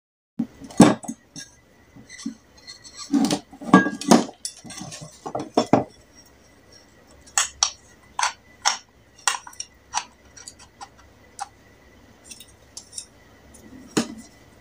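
Irregular metal clinks and knocks as a small single-phase exhaust fan motor is reassembled by hand, its rear metal end cover being fitted and seated onto the stator. The loudest knocks come in the first four seconds, with lighter clicks after.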